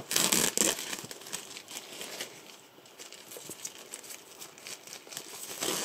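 Clear plastic wrapper being torn and peeled off a cardboard phone box, crinkling. The crinkling is loudest in the first second, goes faint in the middle, and picks up again near the end.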